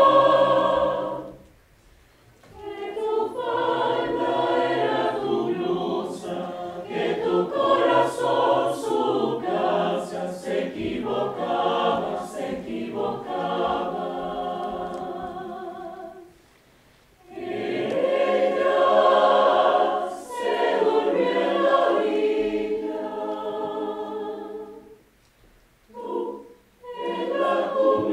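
Mixed choir of women's and men's voices singing a cappella under a conductor, in phrases with short breaths of silence about two seconds in, around sixteen seconds and near twenty-five seconds.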